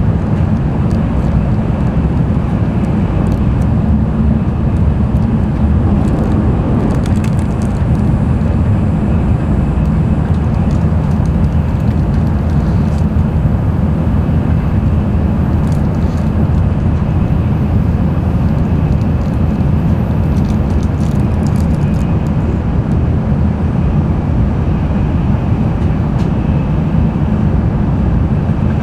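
Cabin running noise of an N700-series Shinkansen travelling at speed: a loud, steady low rumble with a hiss above it and a few faint ticks.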